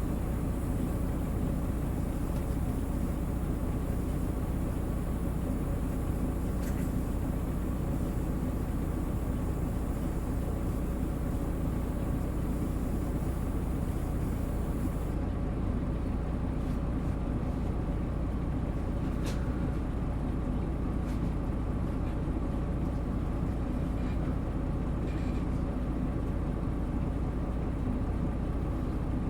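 Isuzu Erga Mio city bus's diesel engine and drivetrain running at a steady speed, with an even hum and a few sharp clicks, the loudest a little past the middle.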